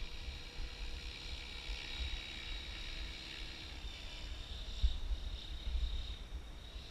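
Align T-Rex 700 Pro DFC electric RC helicopter flying at a distance: a steady high whine from its motor and spinning rotors. Underneath it runs a gusty low rumble of wind on the microphone.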